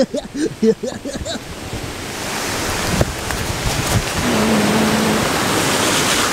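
Rushing floodwater in heavy rain: a steady loud roar of water that swells about two seconds in, with a few short voice-like sounds in the first second and a half.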